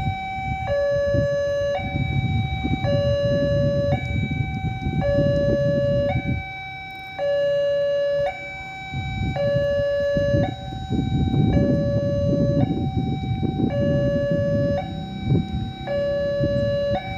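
Railroad level-crossing warning alarm sounding its two alternating electronic tones, high then low, each held about a second, warning that a train is approaching while the barriers are down. A low rumble rises and falls underneath.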